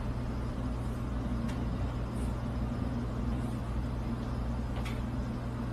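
A steady low mechanical hum, like a motor or engine running, with a couple of faint clicks.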